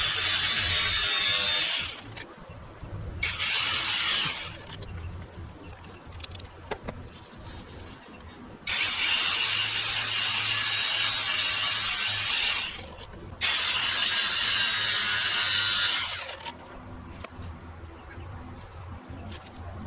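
A power tool run in four hissing bursts of one to four seconds each, starting and stopping sharply, with the longest burst in the middle.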